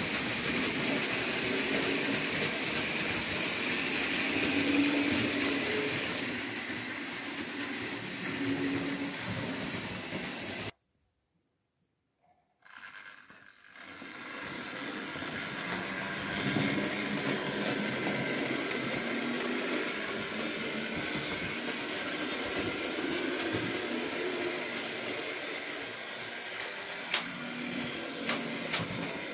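Model railway trains running on metal track: a steady small-motor hum with wheel rattle, which cuts out for about two seconds near the middle and then resumes. A few sharp clicks come near the end.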